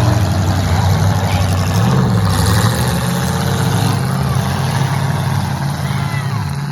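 Demolition derby car engines running loudly, their pitch shifting up and down as they rev.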